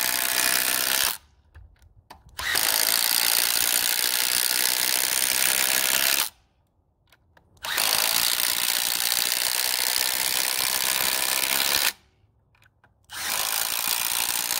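Milwaukee M18 Fuel Gen 3 impact driver on high, hammering 6-inch TimberLOK structural wood screws in one after another. A steady run of rapid impacts is broken by three short pauses of about a second, one between each screw.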